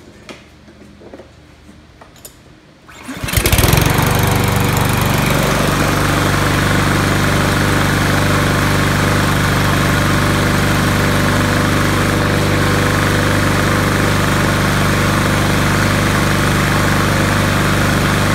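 Craftsman walk-behind mower's 159cc single-cylinder engine starting about three seconds in, after a few faint clicks. It then runs loud and steady at a constant governed speed.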